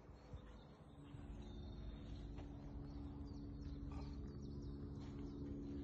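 Faint outdoor ambience: birds chirping over a steady low hum that grows a little louder after the first second.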